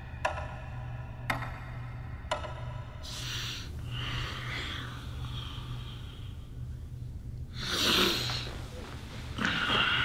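Clock-like ticks about once a second for the first three seconds, then a man's heavy breathing and snorts as he lies awake in bed, with a loud breath about eight seconds in and another near the end, over a low steady hum.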